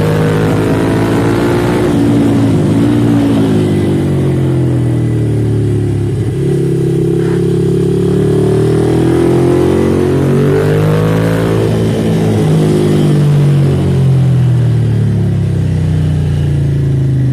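Ducati Monster's V-twin engine through an Arrow aftermarket exhaust, heard on board while riding: the engine note rises and falls several times as the rider accelerates, shifts and rolls off the throttle.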